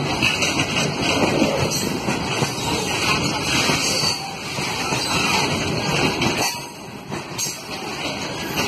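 Open-top freight wagons rolling past close by: steel wheels rumbling and clattering on the rails, with the noise easing briefly about seven seconds in.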